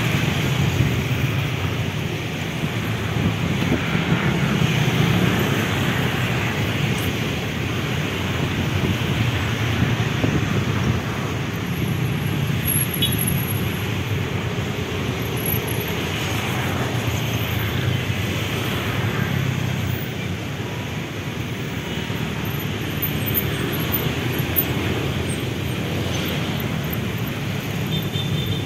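Steady rumble of road traffic, rising and falling slightly as vehicles pass.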